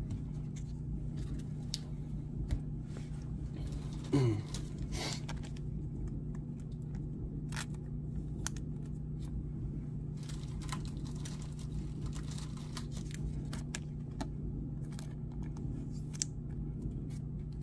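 Baseball trading cards being handled by hand: scattered light clicks and taps as the cards slide against each other and are set down. A steady low hum runs underneath, and a short voiced sound comes about four seconds in.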